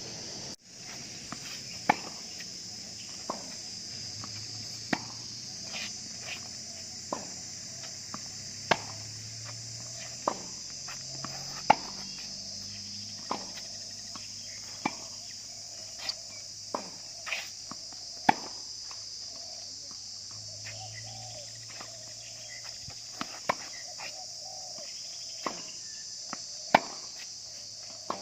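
Steady high-pitched insect chorus, with sharp knocks of a tennis ball struck by rackets and bouncing, one every second or so in a rally.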